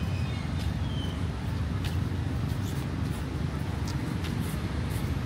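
Steady low rumble of road traffic, with a few faint irregular ticks on top.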